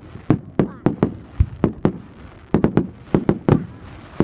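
Fireworks going off in a quick, uneven run of sharp bangs and cracks, about four a second with a short lull in the middle, some bangs echoing briefly.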